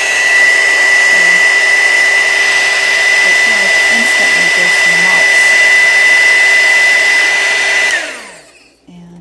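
Electric heat gun running, a steady blowing rush with a high fan whine, aimed at a soy wax candle's surface to remelt pitting. About eight seconds in it is switched off and the whine falls in pitch as the fan winds down.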